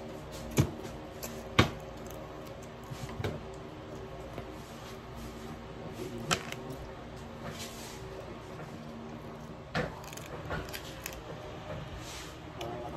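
Crab being eaten by hand at a dining table: scattered sharp clicks and knocks of crab shell and tableware, the two loudest within the first two seconds, over a steady low hum.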